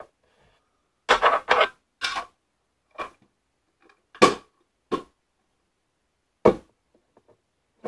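Small metal tin holding cardboard jigsaw puzzle pieces being handled and shaken. There is a short clattering rattle about a second in, then a handful of separate sharp clacks and knocks a second or so apart.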